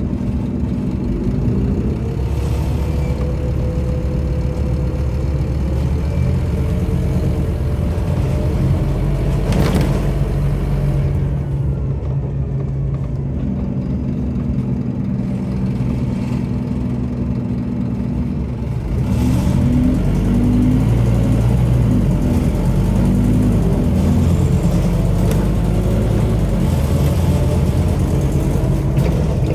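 Scania OmniCity bus's 9-litre Scania DC09 diesel engine and driveline, heard from inside the passenger saloon while the bus is under way. The engine hum changes pitch a few times, there is a single sharp knock about ten seconds in, and the engine works harder and louder from about two-thirds of the way through.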